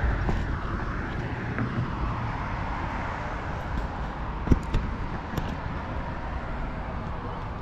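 Steady rush of road traffic noise with a low rumble; one sharp knock about four and a half seconds in.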